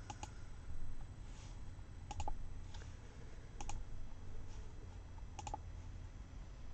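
Computer keyboard keys clicking slowly, four sharp double clicks spaced one to two seconds apart, over a faint low hum.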